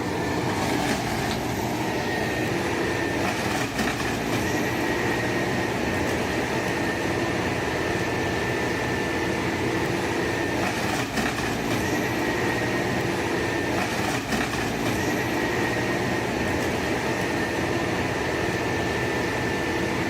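Excavator-based tree harvester running steadily: its engine and hydraulics give an even, unchanging drone with a thin steady high whine above it.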